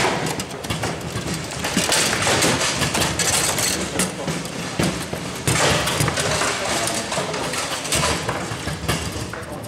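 Table football in play: the ball and the rod-mounted players knocking and clacking against each other and the table in rapid, irregular strikes, over steady background noise.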